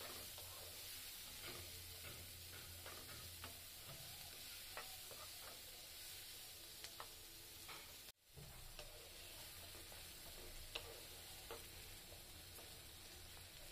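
Diced onions frying gently in oil in a nonstick pan, with a faint sizzle and light scrapes and taps from a wooden spatula stirring them.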